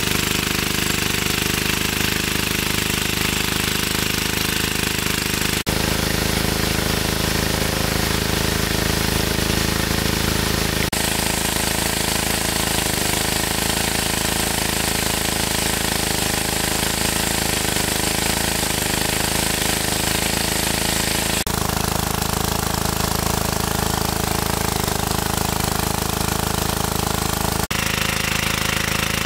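Small engine-driven water pump running steadily. Its sound shifts abruptly several times to a slightly different steady note.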